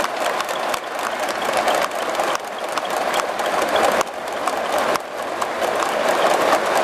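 Large stadium crowd applauding, a dense clatter of clapping that swells and drops back several times.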